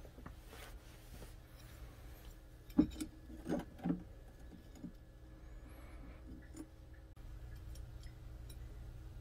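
Steel knife blade on a wire hook being moved through a plastic tub of dark liquid: a few soft knocks and splashes about three to four seconds in, with faint ticks over a low steady background.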